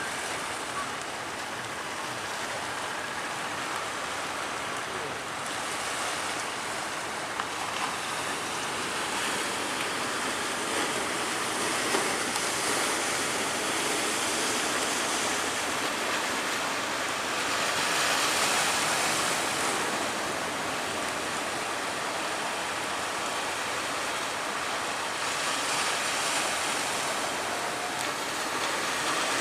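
Sea waves breaking and surging: a steady rush of water that swells louder several times as bigger waves come through.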